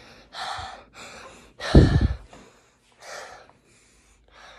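A boy breathing and sighing close to a phone microphone: four breathy exhales, the loudest about two seconds in, with a low rumble of air striking the mic.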